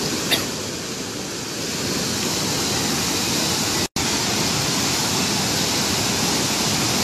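Brown floodwater of a swollen river rushing and churning in a steady, loud wash of noise. A short click sounds about a third of a second in, and the sound drops out for a split second about four seconds in.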